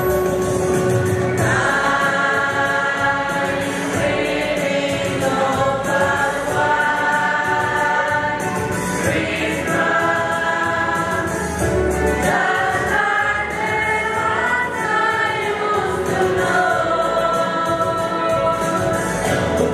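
Mixed polyphonic choir of women's and men's voices singing in parts, holding long notes and moving together from chord to chord.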